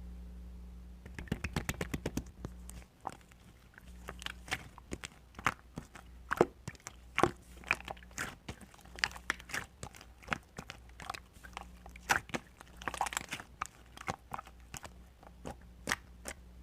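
Sharp crunching clicks, in a fast run at first and then coming irregularly, one or two at a time.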